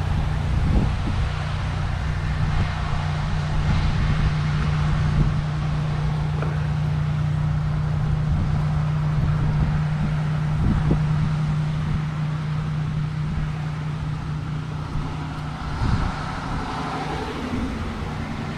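A car engine idling with a steady low hum, which stops about three-quarters of the way through.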